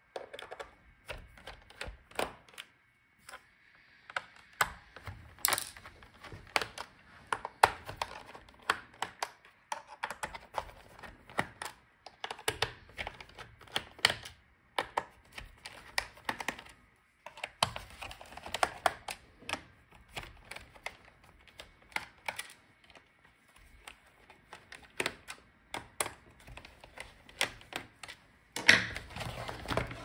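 Precision screwdriver backing the bottom-case screws out of a laptop: an irregular string of small clicks and taps of the bit on the screws and case. Near the end, louder handling noise as the laptop is lifted and turned over.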